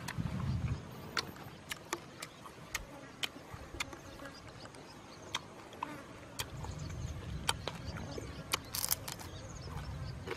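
Charred skin and meat of a whole roasted goat being torn apart by hand and chewed: scattered sharp crackles and smacks over a low rumble.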